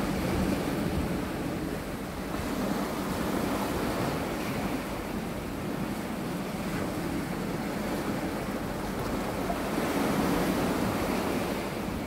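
Sea waves washing in over flat layered rock ledges, a continuous wash that swells twice, a few seconds in and again near the end.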